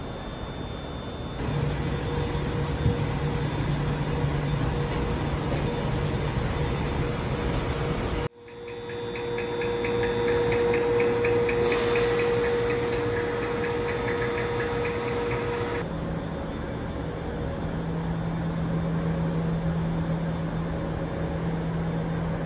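Steady machinery hum of a sleeper train standing at a station platform, a few held tones over a constant hiss. The sound changes abruptly about a third of the way in and again about two-thirds through.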